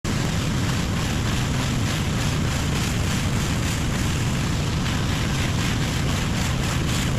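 Pressure washer running steadily, its engine-driven pump humming under the hiss of the water spray.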